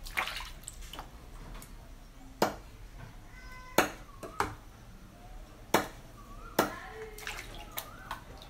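Knife chopping frog meat on a cutting board: a series of sharp strikes spaced about one to two seconds apart, with water sloshing in a basin as the pieces are rinsed.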